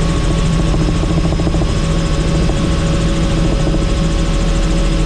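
Helicopter in flight: the engine and rotor drone steadily, with a fast, even beat of the blades and a constant hum.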